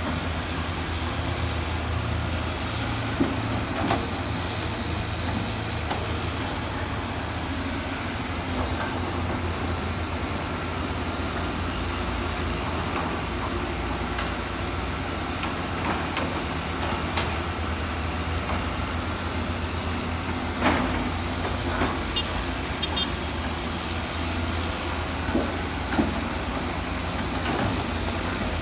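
Heavy diesel construction machine's engine running steadily, with a few sharp knocks and clanks scattered through it.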